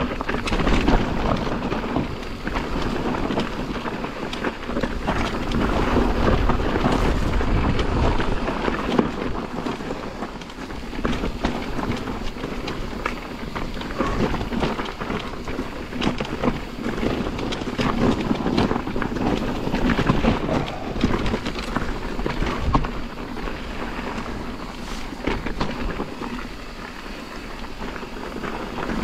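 A mountain bike descending a rough dirt trail: wind rushing over the microphone, tyres on loose ground, and the bike rattling with many small knocks and clicks.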